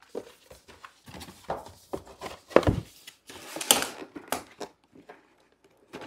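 Handling noise from plastic magnetic tiles and a cardboard box: irregular clicks and knocks on a wooden table, a louder knock about two and a half seconds in, and a rustle about a second later as the box is folded shut.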